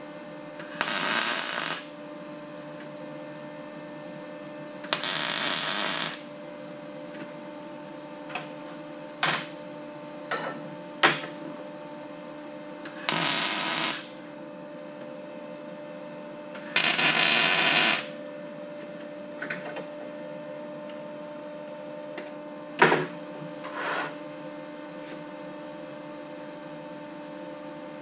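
PrimeWeld Mig180 MIG welding arc: four short bursts of about a second each, with a few sharp clicks in between. A steady hum runs underneath.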